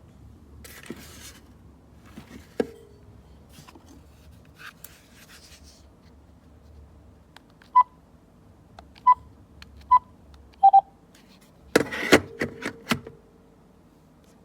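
Four short beeps from a VTech DECT 6.0 cordless phone as its keys are pressed, about a second apart, the last one lower and doubled. They are followed by a quick run of clattering knocks, with a few lighter knocks near the start.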